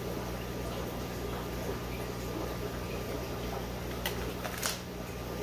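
Steady low electrical hum with a faint hiss, and a couple of light clicks about four seconds in from hands handling plastic airline tubing and fittings.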